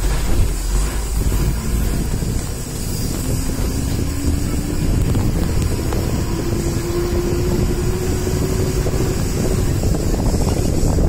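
A vehicle driving along, its engine and road noise running steadily, with wind buffeting the microphone. Through the middle, a faint tone slowly rises in pitch as the vehicle speeds up.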